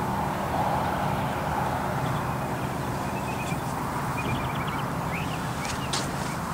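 A steady low engine hum, with a few faint high chirps about halfway through.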